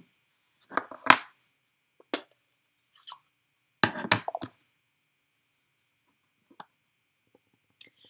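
Scattered clicks and knocks of rubber-stamping supplies being handled on a craft desk: a plastic ink-pad case being opened and a clear acrylic-mounted stamp being picked up and tapped onto the pad. The loudest is a sharp click about a second in, with a cluster of knocks around four seconds and faint taps near the end.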